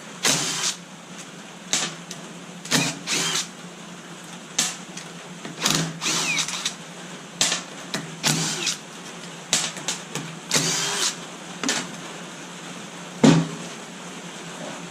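Metal parts of a forklift's reverser clutch pack knocking, clinking and scraping as it is handled and taken apart, in short irregular bursts, some ringing briefly, over a steady low hum.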